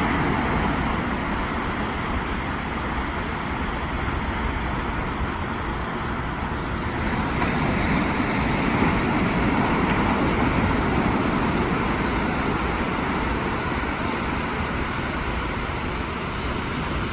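Waves breaking on a beach: a steady rushing that swells a little louder about halfway through.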